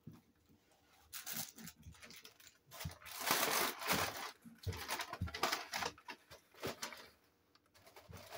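Irregular rustling and crinkling noises in several short runs, the longest a little past the middle.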